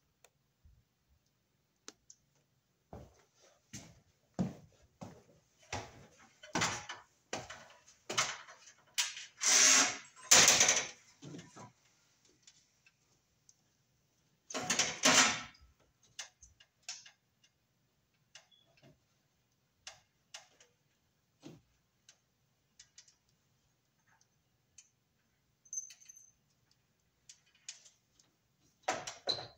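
Hand work with tools and electrical hardware: a run of clicks, knocks and scrapes, busiest and loudest around ten seconds in, with another loud scrape at about fifteen seconds and scattered clicks after.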